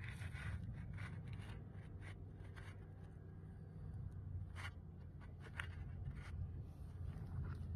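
Steady low rumble of wind on the microphone, with scattered short scraping and crunching sounds.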